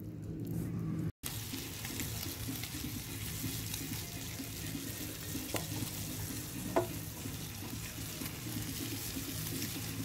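Wood campfire burning under a pan held over the flames: a steady hiss with two sharp crackles, about five and a half and seven seconds in.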